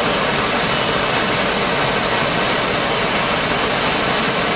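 Harris 50-3 oxy-acetylene welding torch flame burning with a steady, even hiss.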